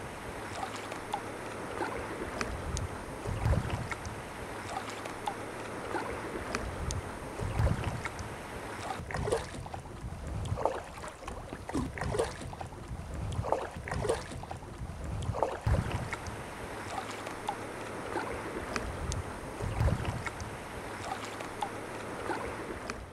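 Sea kayak paddling on open water: paddle strokes and water splashing and lapping against the hull at an unhurried pace, with wind buffeting the microphone in irregular low thumps.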